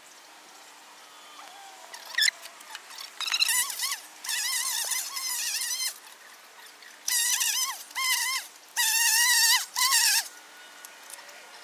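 Electric string trimmer whining in four short bursts of a second or two each, starting and stopping with the trigger, its high pitch wavering as the line cuts through weeds.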